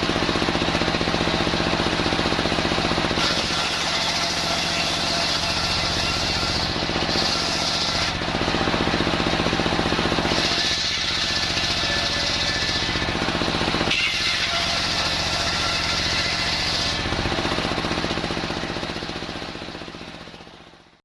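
Homemade circular saw bench running steadily, its blade cutting through old waru wood in several passes of a few seconds each, with a harsher, higher sound while in the cut. The sound fades out near the end.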